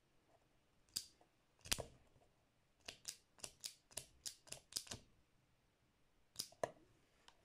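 Vintage Ronson Varaflame butane lighter's metal lever and flint-wheel mechanism clicking as it is worked on and off: two sharp clicks, then a quick run of about nine lighter clicks at roughly four a second, then two more clicks near the end.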